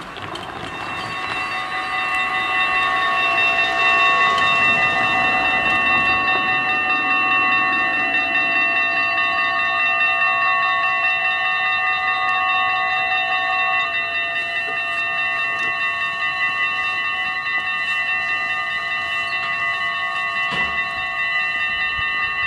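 Warning bells of a Dutch automatic half-barrier level crossing begin ringing and keep up a steady, many-toned ringing: several electric bells sounding together to warn of an approaching tram. A brief knock comes near the end.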